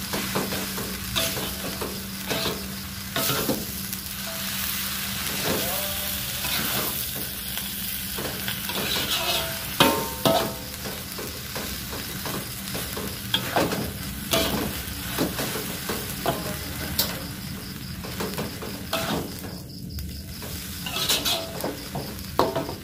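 Instant fried noodles sizzling in a hot wok while a metal spatula stirs and scrapes them, with frequent clanks of the spatula against the wok, one louder about ten seconds in.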